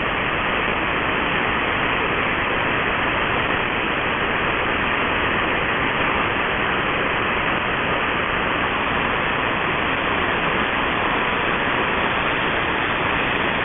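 Steady, even hiss of shortwave static from a receiver in AM mode on 7475 kHz, with no programme audio on the frequency after the pirate station's sign-off.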